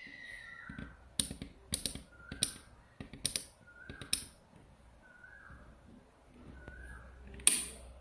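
Refrigerator defrost timer knob being turned by hand, clicking as it is advanced toward the defrost-heater cycle. Five sharp clicks come at irregular intervals of roughly a second, then a louder click near the end.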